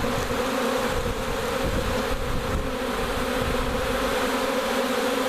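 Steady loud buzzing of a large honey bee swarm in flight, thousands of wings humming together around the microphone.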